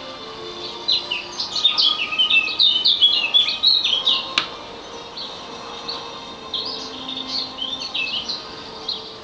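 Small birds chirping in quick runs of short, high notes, busiest in the first half and thinning out later; a single sharp click about four seconds in.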